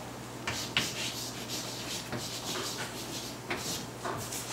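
Chalk scratching and tapping on a blackboard as Chinese characters are written: a quick, irregular series of short strokes.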